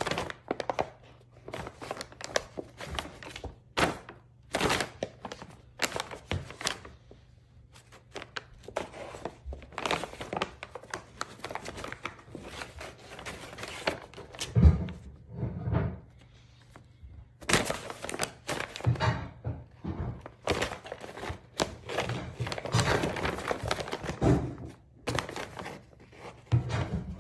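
Brown paper grocery bag crinkling and rustling in irregular bursts as cats paw at it, climb on it and push their heads inside, with dull thumps as they bump against the bag and floor.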